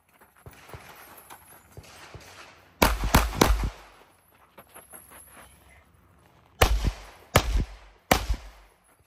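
Six pistol shots fired in two strings of three: the first string fast, about a third of a second apart, and the second, about four seconds later, slower, with roughly three quarters of a second between shots.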